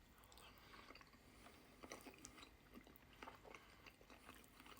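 Faint, close chewing of a mouthful of halloumi kebab, a few soft mouth clicks scattered through it.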